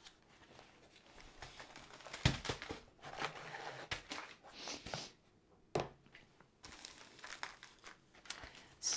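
Plastic packaging crinkling and a cardboard box rustling as a kit's contents are handled and set down, with a couple of knocks, about two seconds in and again near six seconds.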